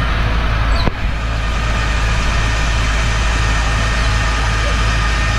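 Fire truck engine running at a steady low drone while driving its water pump, with a broad hiss from the water jets, and a short break about a second in.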